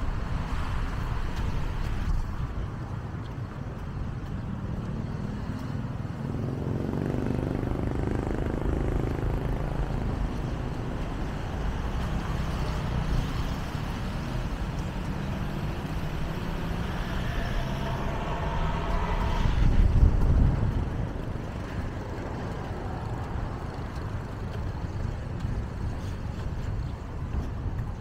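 Road traffic running past over a steady low rumble, with vehicle engines going by. One passes close and is loudest about twenty seconds in.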